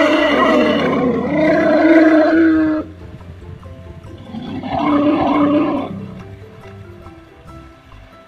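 Wild Asian elephant trumpeting twice: a long blast that cuts off suddenly about three seconds in, then a shorter one about four seconds in. Soft background music lies underneath.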